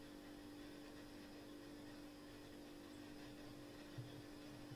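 Near silence: faint steady electrical hum and hiss of room tone, with one brief soft low knock about four seconds in.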